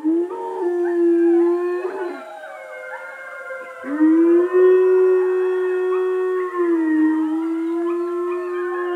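A grey wolf howling: a steady low howl of about two seconds, then after a short break a longer howl of about five seconds that dips slightly in pitch late on and then trails off. Higher wavering tones run alongside.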